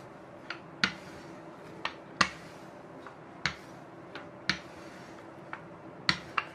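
Wooden rolling pin clicking and knocking as it is rolled back and forth over dough on a silicone mat: about a dozen sharp, irregular clicks, often in close pairs.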